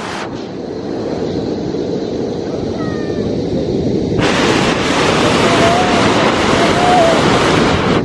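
Rushing water of a waterfall cascading over rocks, a steady loud roar that grows louder and brighter about four seconds in, with wind buffeting the microphone.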